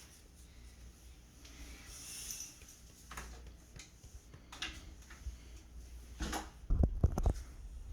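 Scattered sharp plastic clicks from a Nerf blaster being handled, with a cluster of heavy knocks about six and a half to seven seconds in.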